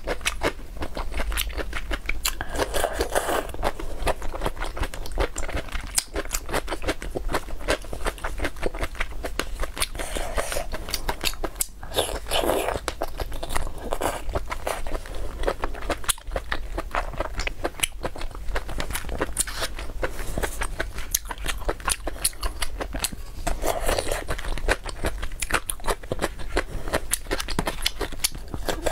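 Close-miked mouth sounds of eating: wet chewing and lip-smacking made of many quick small clicks, with a few louder slurps along the way.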